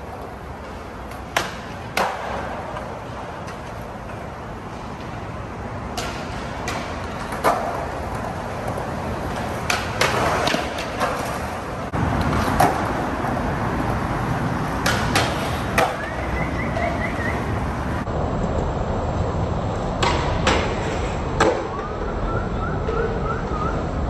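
Skateboard wheels rolling over smooth concrete with a steady low rumble, broken by a dozen or so sharp clacks of boards popping, hitting and landing.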